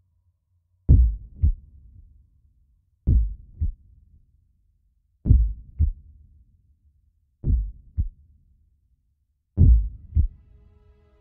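Background music made of a slow, deep double thump like a heartbeat, a strong beat followed by a weaker one about half a second later, repeating about every two seconds, five times.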